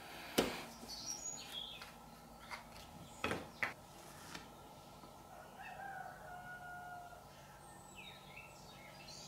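A few sharp clicks and taps as a plastic glue bottle's cap is taken off and the bottle is handled, with faint bird calls in the background.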